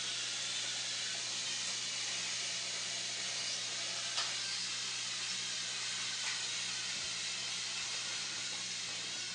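Steady hiss with a low hum underneath, broken by a faint click about four seconds in and a weaker one about six seconds in.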